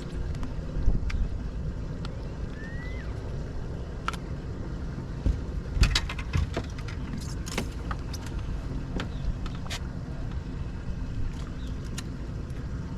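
Steady low motor rumble on a bass boat, with scattered knocks and clacks of gear and hull throughout, the loudest about a second in and around six seconds in.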